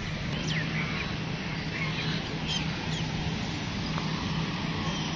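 Outdoor ambience: a steady low hum with a few faint, short bird calls over it.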